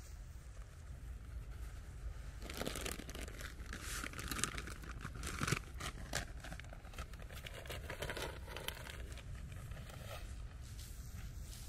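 Plastic sack of Epsom salt fertiliser crinkling and rustling as it is handled, busiest from a couple of seconds in until about three quarters through, over a low steady rumble.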